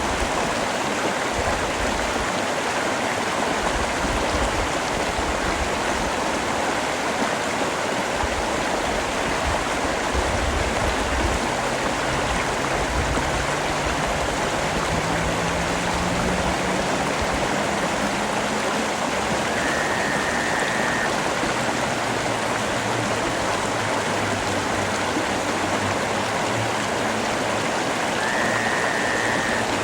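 Steady rain, an even unbroken hiss. Midway a faint low hum slowly rises in pitch, and two brief high tones sound, one about two-thirds of the way in and one near the end.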